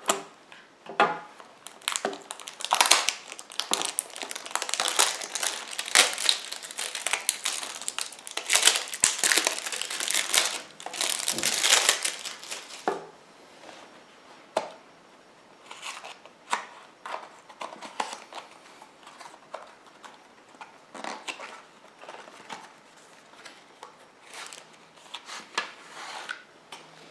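Plastic shrink-wrap film being picked at and peeled off a cardboard knife box, crinkling and crackling loudly for about ten seconds. After that come quieter, scattered rustles and clicks as the box is handled and slid open.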